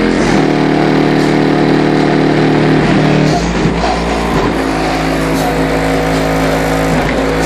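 Car stereo with a 15-inch Ground Zero Plutonium XQ subwoofer playing bass-heavy music loud, deep held bass notes that change pitch every few seconds.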